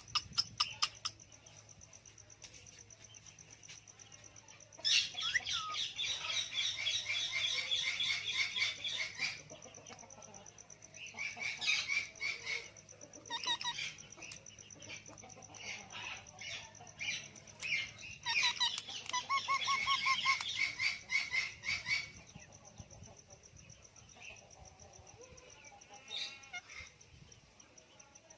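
Ringneck parrot (rose-ringed parakeet) calling in bursts of rapid, chattering repeated notes, with three long bursts about five, eleven and eighteen seconds in and shorter calls between.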